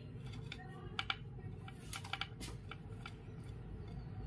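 Hands working macrame cord into knots: faint handling rustle with a few light clicks, one about a second in and a cluster around two seconds in, over a steady low hum.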